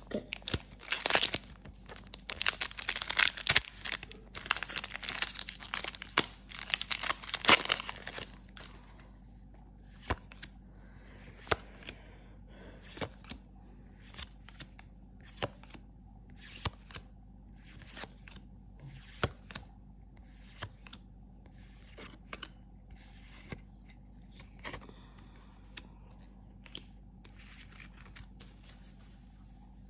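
A foil trading-card booster pack is torn open and crinkled for about eight seconds. Then come light clicks about once a second as the cards are flipped through one by one.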